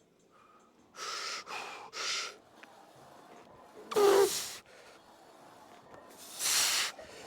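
A man breathing hard under heavy effort during a set of leg exercise. Three quick sharp breaths come about a second in, then a loud gasp with a strained voiced grunt about four seconds in, and another hard breath near the end.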